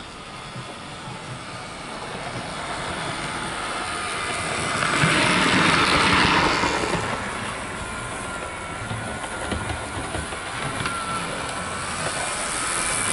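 Dapol OO gauge BR Class 52 Western model locomotive running light along the layout track. The whirr of its motor and wheels on the rails grows louder as it comes past close by about five to six seconds in, then fades to a faint steady motor whine. It runs smoothly, with no grinding or stuttering.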